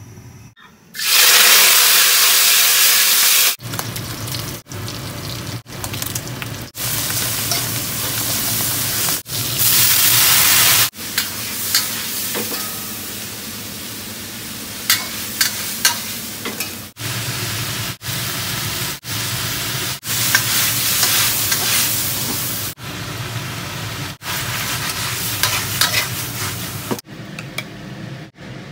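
Stir-frying twice-cooked pork and cabbage in a wok: a loud hiss bursts up about a second in as ingredients hit the hot oil, then the frying goes on steadily with the metal spatula scraping and clicking against the wok. The sizzle comes in short stretches broken by abrupt gaps.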